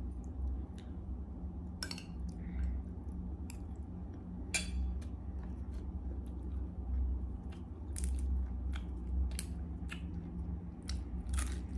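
Close-up eating sounds: chewing, with crisp snaps and crackles as stink-bean (sato) pods are split open by hand and the beans picked out, a handful of sharper cracks scattered through, over a low steady hum.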